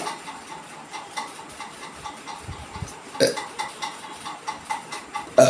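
A woman burping twice, two short belches about two seconds apart, the second louder.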